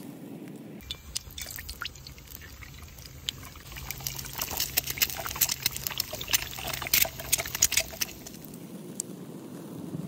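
An egg frying in a pan over a wood fire: a sizzle with many sharp pops and spatters. It starts about a second in, the popping grows thick and loud about four seconds in, and it stops a second or two before the end.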